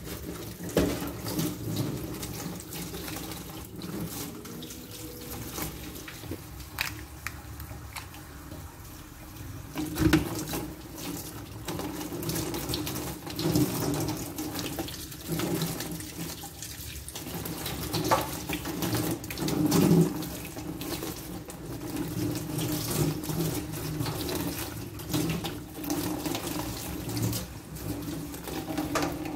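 Kitchen tap running into a stainless steel sink while raw crabs are rinsed by hand over a plastic colander, with scattered knocks and clicks as the crabs are handled.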